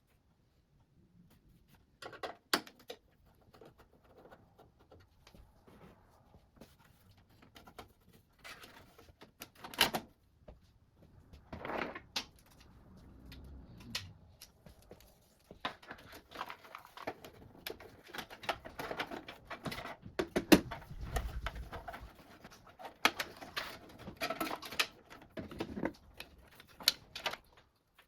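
Hands handling desktop computer parts during assembly: scattered clicks, taps and knocks with bits of scraping and rustle, busier in the second half.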